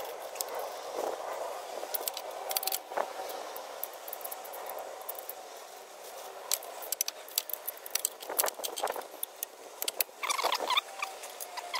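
Hand tools and bolts clinking and rattling against metal as the alternator's mounting bolts are refitted: scattered light clicks in short clusters, busiest in the second half.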